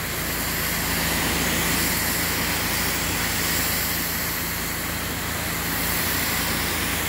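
Gas-engine pressure washer running steadily while its wand sprays a high-pressure jet onto a concrete driveway, rinsing it down: an even hiss of spray over the engine's steady drone.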